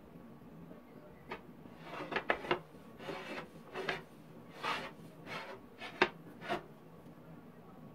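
A brush swept in short strokes across a hot flat griddle, spreading a thin layer of batter for samosa pastry sheets: about a dozen irregular strokes, the sharpest about six seconds in.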